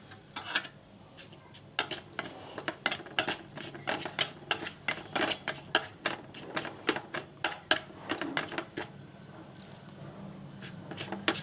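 A spoon clinking and scraping against a small bowl as a mix of ground spices, broken cloves and fennel seeds is stirred together. It makes a quick, irregular run of light clicks, several a second, that thins out near the end.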